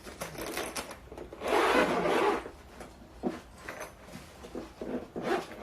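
A lightweight trumpet case being opened: a long rasping scrape about a second and a half in, lasting about a second, among lighter rustles and small knocks.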